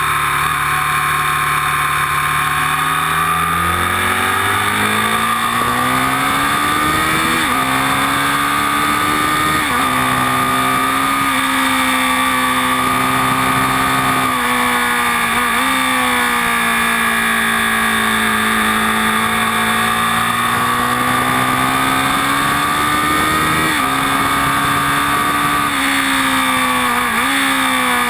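Aprilia Tuono Factory's engine heard onboard at track speed, its pitch climbing and falling with the throttle and dipping sharply several times at gear changes, over steady wind rush.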